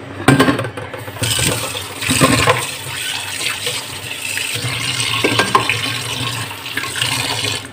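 Tap water running in a steady stream into a stainless steel sink, splashing off the basin and a pan rinsed under it. A metal clatter comes just after the start, and there are a few light knocks along the way.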